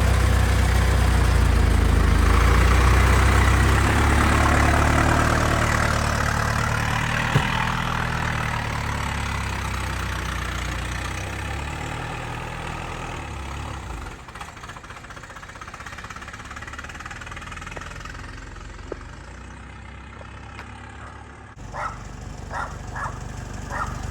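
1923 Model T Ford's four-cylinder engine running as the car pulls away, loud at first and then fading steadily as it drives off into the distance.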